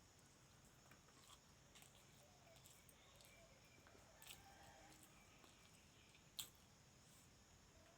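Near silence with faint eating sounds: a few soft clicks and smacks of someone chewing a mouthful of rice and curry, the loudest about six seconds in.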